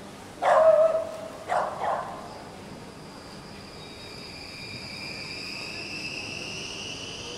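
A dog barks three times on a city street, one long bark and then two short ones. From about two seconds in, a high whine rises slowly in pitch.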